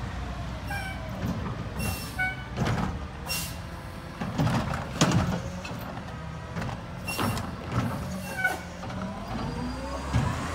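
Mack LR garbage truck's engine running low as it creeps forward, with several sharp air-brake hisses and short high squeaks as it stops and starts.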